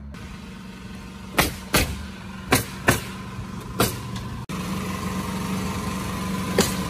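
Sharp knocks from roofing work on a new sheet-metal roof, five strikes over about two and a half seconds. After a sudden break about halfway through, a steady engine hum takes over, with two more knocks near the end.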